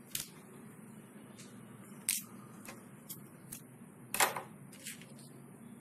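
Light clicks and taps of small objects being handled on a wooden tabletop, about eight of them at irregular intervals, the loudest a little after four seconds in.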